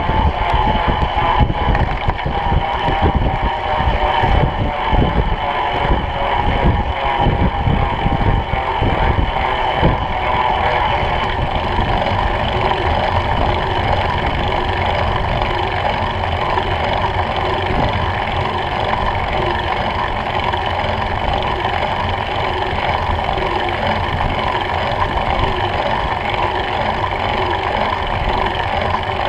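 Wind rushing and buffeting over a bicycle-mounted camera's microphone, heavier in about the first ten seconds, over the steady whir of folding-bike tyres and drivetrain rolling on wet tarmac.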